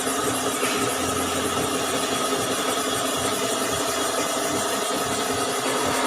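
A workshop machine running steadily: an even mechanical hiss with a constant hum and whine that do not change in pitch.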